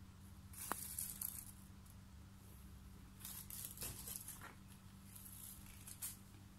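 Faint rustling and scratching of cats' paws scuffling on a scratching pad and rug, in a few short bursts, over a steady low hum.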